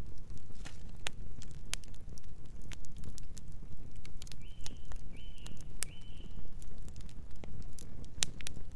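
Fire crackling: a steady low rumble with frequent sharp pops, and three short high chirps around the middle.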